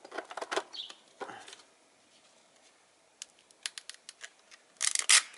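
Abrasive sanding sheet from a handheld sander being cut into a strip about 2 cm wide: short scratchy rasps at the start and about a second in, a run of light clicks around three to four seconds, and a louder rasp near the end.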